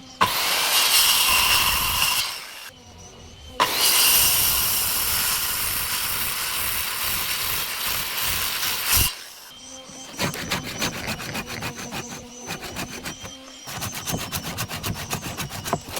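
Wood being cut with woodworking tools: two long stretches of steady loud cutting noise that start and stop abruptly, then a run of quick, rasping strokes on the wood in the last six seconds.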